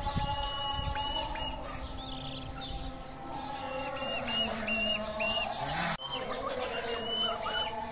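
Roosting chickens calling: repeated short, high peeps over lower, drawn-out calls.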